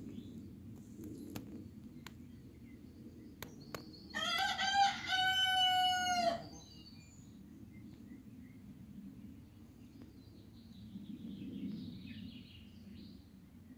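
A rooster crows once, about four seconds in: a few quick rising notes and then a long held note, lasting about two seconds.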